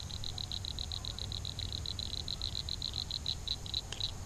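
A frog calling from the pond: a steady run of short, high clicking notes, about seven a second.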